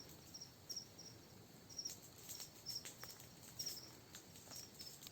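Faint chirping of night insects: short, high chirps repeating about twice a second, with a few faint clicks among them.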